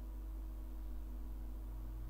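Steady low electrical hum with faint hiss: the background noise of the recording, with no other events.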